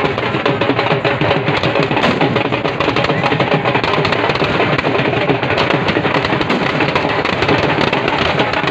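Loud, dense drumming with firecrackers crackling and popping throughout.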